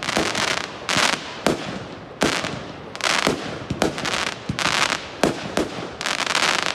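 Aerial fireworks bursting in quick succession, roughly one bang a second. Each bang is followed by a brief crackling hiss from crackling stars.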